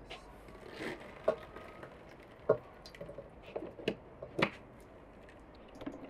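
A hand-operated metal juice press squeezing halved pomegranates: the fruit squelches, and the press gives several sharp clicks and knocks spread through. Juice trickles into a basin.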